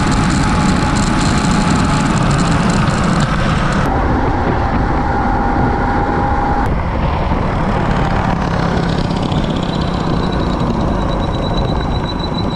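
Mini bike riding at full speed: heavy wind rush over the mounted camera with a thin motor whine. The sound changes abruptly twice, and a high whine rises slightly near the end.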